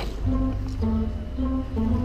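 Background music: a melody of held notes changing every fraction of a second over a steady bass line.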